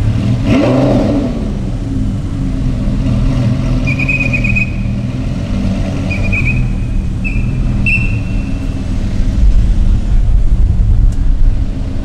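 A traffic enforcer's whistle, blown in four short, steady high blasts, sounds over running car engines and passing street traffic. A vehicle's engine swells briefly near the start, and the engine rumble grows louder near the end.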